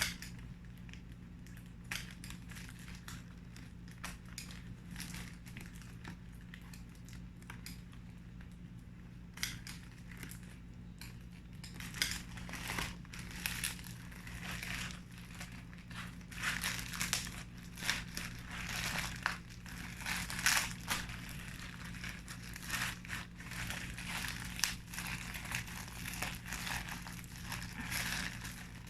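Plastic packaging crinkling and rustling in short bursts as a parcel is rummaged through, sparse at first and busier in the second half.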